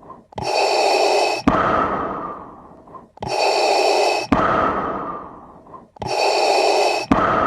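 Darth Vader's mechanical respirator breathing sound effect: three slow breaths about three seconds apart. Each is a loud hiss, a sharp click, then a longer hiss that fades away.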